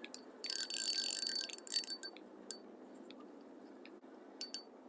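A fishing reel being wound for about a second with a whirring hiss, followed by a few small sharp clicks and taps as the hooked fish is brought in.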